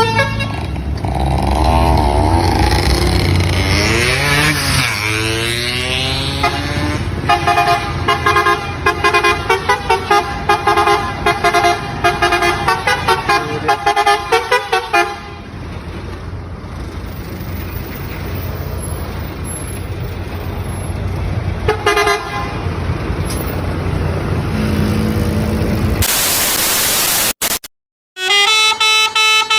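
Lorry 'telolet' musical air horns playing a multi-note tune, the notes sliding up and down at first, then pulsing rapidly until about halfway. After that come engine and road noise with one brief toot, a loud hiss near the end, a short cut, and the horn tune again.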